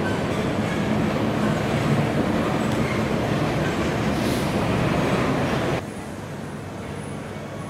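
Steady rumble of passing vehicles, cutting off suddenly about six seconds in to a quieter, steady indoor hum.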